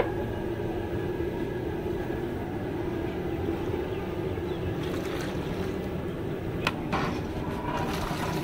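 Steady low roar of a gas burner under a large cooking pot, with two sharp metal clinks about two thirds of the way through. Near the end, thick tomato gravy is poured from one pot into another.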